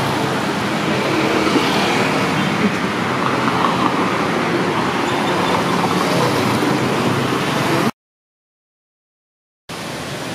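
Motor vehicle running, a steady engine and road noise, which cuts off suddenly about eight seconds in. After a short silence a quieter, even rushing noise begins.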